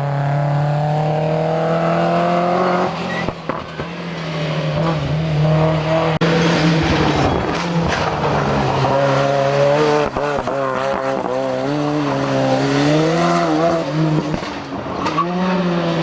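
Rally car engine running hard: its pitch climbs for a few seconds, drops at a gear change, then rises and falls repeatedly with the throttle through the second half.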